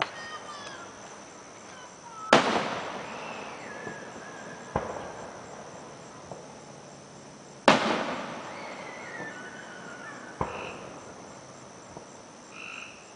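Aerial fireworks going off: sharp booms about two and eight seconds in, the loudest, and lighter bangs near five and ten seconds, each trailing off in an echo.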